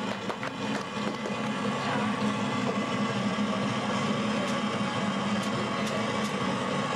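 Steady electric hum from guitar and bass amplifiers left on after the song: one low drone with a fainter higher tone above it, getting a little louder about two seconds in.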